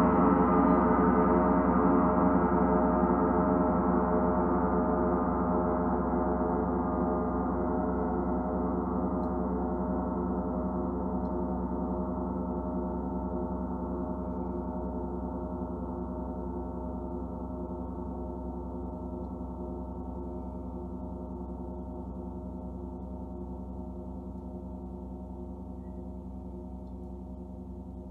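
Large gong ringing on unstruck after an earlier strike: a dense cluster of steady humming tones fading slowly and evenly, the higher tones dying away first.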